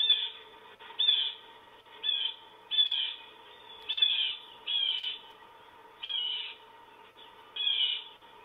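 Red-shouldered hawk calling over and over, about eight loud screams each dropping in pitch, roughly one a second. It is the alarm that sent the female owl dashing into the box.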